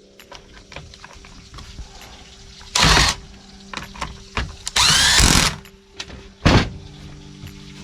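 Power driver run in three short bursts, the longest about two-thirds of a second with a rising whine, among small clicks and knocks of parts being handled: screws being driven while the trimmer is put back together.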